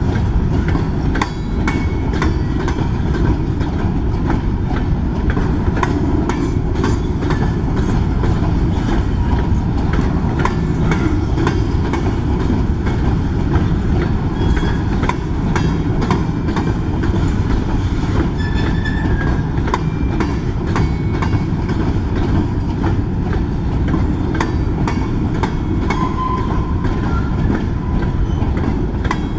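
A freight train of covered hopper cars rolling past: a steady heavy rumble with wheels clacking irregularly over rail joints, and a few short high wheel squeals.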